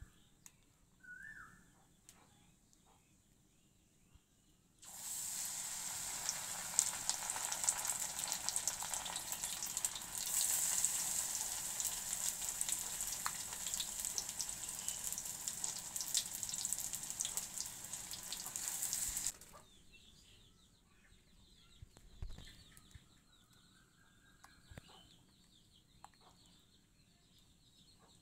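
Battered vegetable fritters sizzling and crackling in hot oil in a wok. The sizzle starts abruptly about five seconds in and cuts off just as suddenly about two-thirds of the way through.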